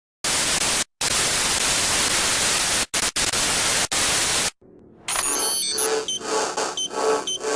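Loud TV static hiss that cuts out briefly a few times and stops about four and a half seconds in. After a short pause, electronic computer beeps and blips begin, pulsing about twice a second.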